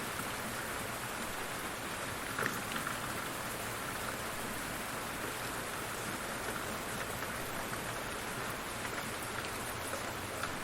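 Steady heavy rain falling, an even hiss with a few louder individual drop ticks.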